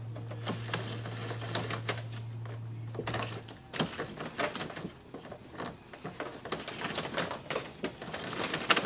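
Speaker wire being pulled and tucked along plastic door-sill trim: an irregular run of clicks, taps and rustles of wire and fingers against plastic. A steady low hum stops about three and a half seconds in.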